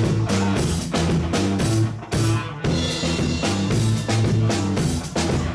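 Live band playing an instrumental funk groove: drum kit, bass line and guitar, with a steady beat.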